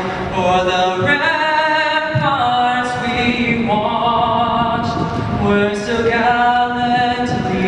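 A male solo singer performing a national anthem into a microphone, unaccompanied, holding long notes with vibrato.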